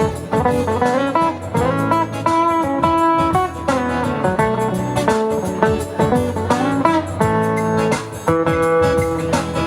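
Guitar playing an instrumental passage of plucked notes and chords without a break, some notes bent in pitch.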